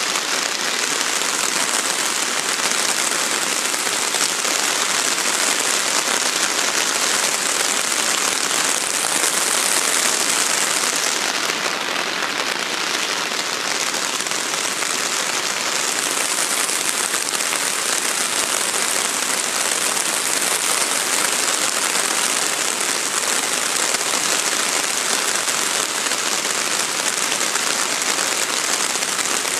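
Heavy rain falling steadily, a dense even hiss of the downpour.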